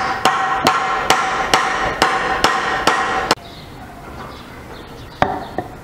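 Hammering: about nine evenly spaced strikes, a little over two a second, each with a ringing metallic tone, stopping abruptly a little over three seconds in. One more lighter strike follows near the end.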